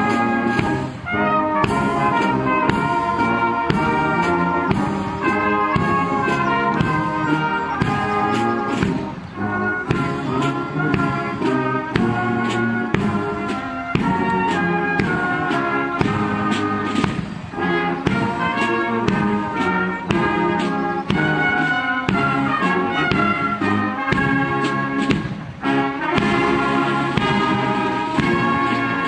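Military brass band playing a march while marching, cornets and trumpets carrying the tune over lower brass, with drum beats throughout.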